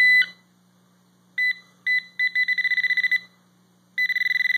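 Garrett Pro-Pointer metal-detecting pinpointer alerting as its tip is held near a steel shovel blade. A steady high tone cuts off just after the start. After a pause come two short beeps, then a fast train of beeps for about a second, and another fast train near the end.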